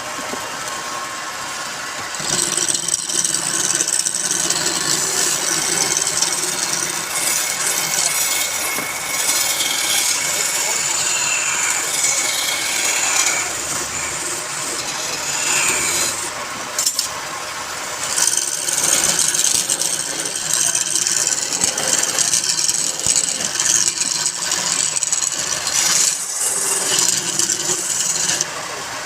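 A wood lathe running while a turning tool cuts the spinning wood, a continuous rasping, scraping noise that swells and eases.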